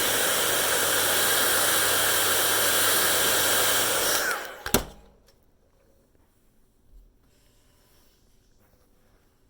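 Hair dryer blowing steadily with a low hum, then switched off about four seconds in: its motor winds down with a brief falling whine, and a sharp click follows. After that it is quiet, with one faint thump.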